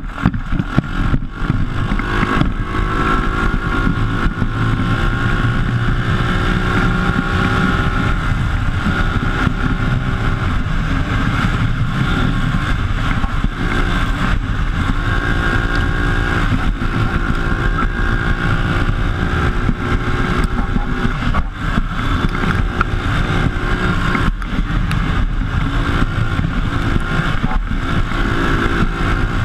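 PGO buggy's engine running on the move, its pitch rising and falling with the throttle, heard close up from on board, with jolts and knocks from the chassis over a rough dirt track.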